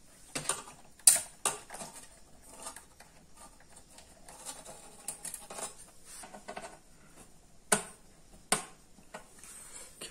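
Sharp clicks and taps of a screwdriver against the open sheet-metal case of a satellite set-top box, with softer scraping and handling in between. The loudest click comes about a second in, and two more near the end.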